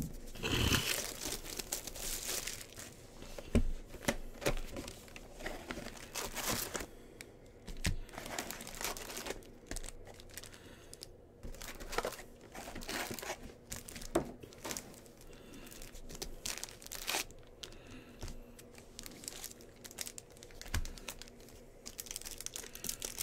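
Plastic trading-card pack wrappers being torn open and crumpled by hand, in irregular crinkling bursts with a few sharp taps.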